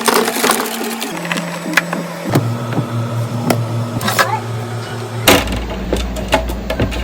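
Background music with a low, slowly changing bass line, over repeated short clicks and knocks of containers and packaging being handled and set down while a fridge is restocked.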